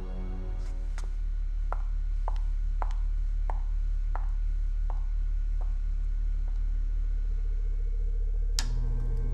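A steady low hum with a run of sharp ticks, about one every two-thirds of a second, growing fainter, then a single louder click near the end.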